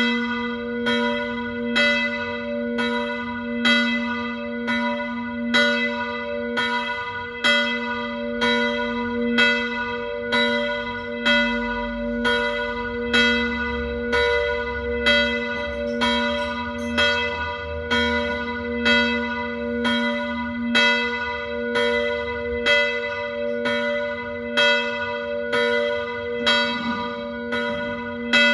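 Church bells ringing a full peal, striking about once a second with a louder stroke roughly every two seconds. Their ringing tones overlap into an unbroken hum.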